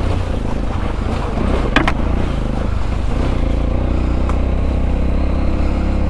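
Sinnis Terrain 125's single-cylinder engine running steadily as the motorcycle is ridden off road, with a sharp knock about two seconds in.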